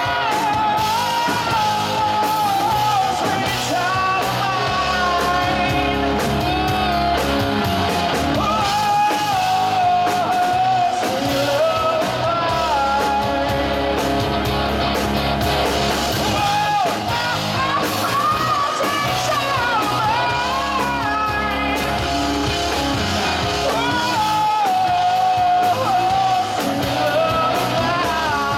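Live rock band playing: a man singing lead over two electric guitars, electric bass and a drum kit.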